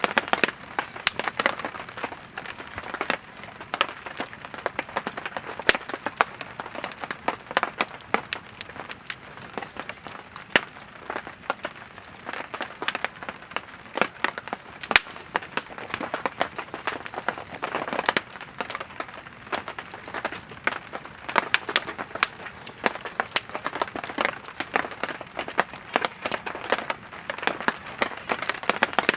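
Campfire of split firewood burning, crackling and popping irregularly with many sharp snaps over a steady hiss of the flames.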